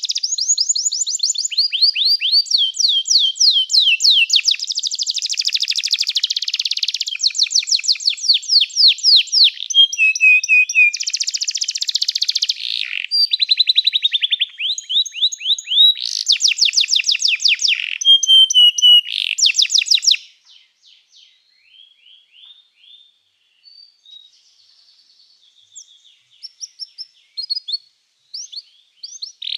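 Domestic canary singing a long song of rapid trills and rolls with quick runs of repeated notes. About two-thirds of the way through the song breaks off to a few soft scattered notes, then starts again loudly at the very end.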